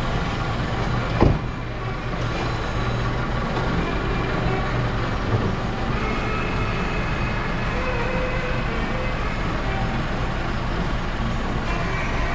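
Mercedes GLC 300's engine running at a steady idle, with one sharp knock about a second in.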